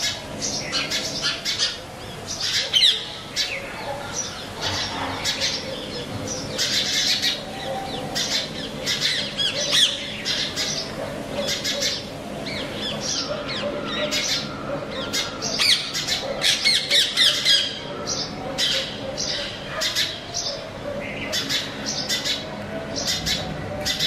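House sparrows chirping: a busy, uneven run of short, sharp chirps, thickening into dense bursts at times.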